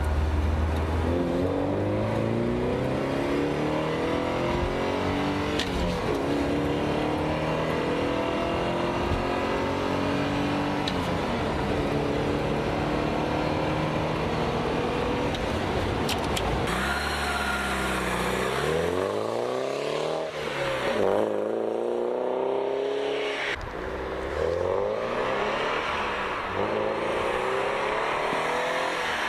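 1986 Porsche 924S's 2.5-litre four-cylinder engine, heard from inside the cabin under hard acceleration: its pitch climbs steadily and drops back at each upshift of the five-speed manual, twice. After about 17 seconds it is heard from outside as the car drives by, the engine note sweeping up and down.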